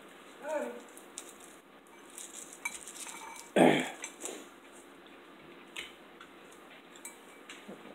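Cutlery clinking and scraping on dishes during a meal: a metal spoon in a bowl of soup beans and a knife working on a small onion, in scattered small clicks. A louder, brief sound with a falling pitch comes about three and a half seconds in.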